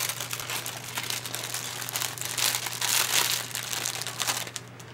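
Thin plastic bag of cake mix crinkling as it is handled and tipped to pour the mix into a sieve. The crinkling is loudest in the middle and eases off near the end.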